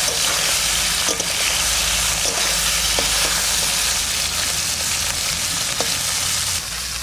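Small fish sizzling steadily as they fry in hot oil in a wok, with a metal spatula stirring them and knocking lightly against the pan a few times.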